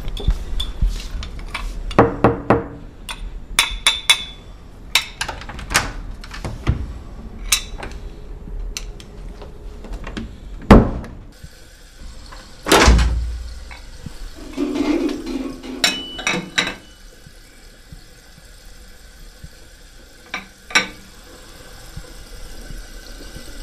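A run of household clinks and knocks: a teaspoon stirring and tapping in a china coffee cup, some taps ringing briefly, then the clicks of a door handle. About halfway there is a louder rush of noise that fades slowly, followed by a few more knocks.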